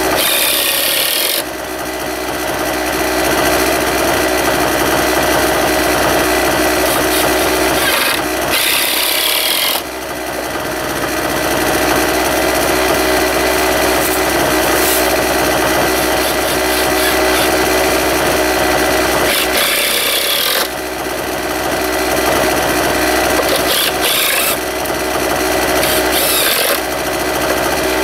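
Cordless drill driving screws into a wooden cabinet top in five short runs: about a second at the start, longer runs near the middle, and two brief ones near the end. A steady, engine-like hum with several fixed tones runs underneath.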